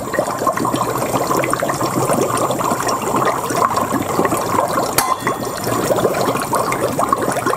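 Dry ice bubbling hard in a metal tumbler of cold tap water: a dense, steady fizzing and gurgling made of many rapid little pops.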